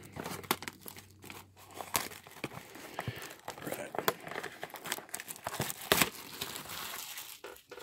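Plastic shrink wrap being picked at, torn and peeled off a cardboard box of trading cards, crinkling and crackling irregularly. The sharpest crackle comes about six seconds in, as the wrap is pulled away.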